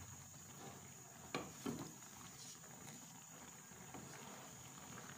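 Wooden spatula stirring chicken pieces in a milky sauce in a nonstick pan: faint scraping and sloshing, with two brief scrapes about a second and a half in.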